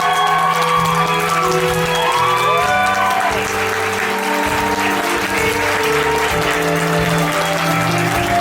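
Theatre audience applauding steadily over the musical's instrumental curtain-call music, with a few sliding melodic notes in the first few seconds.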